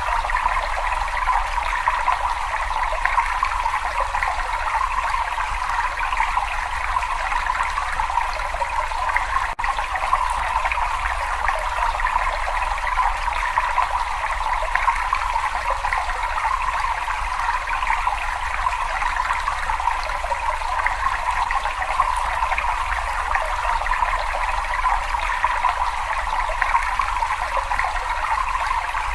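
Water running and trickling steadily in a cave, with a low rumble underneath.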